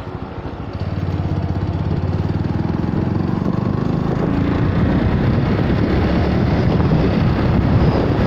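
Engine and road noise of a vehicle driving at speed, getting louder about a second in and then holding steady.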